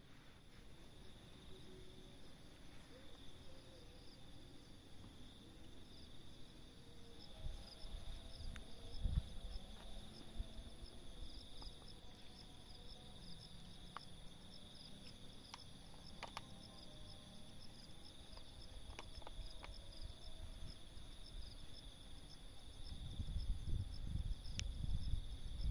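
Insects chirping in a steady high drone, with a second insect call pulsing rapidly and evenly above it. A few faint clicks and low rumbles come through, growing near the end.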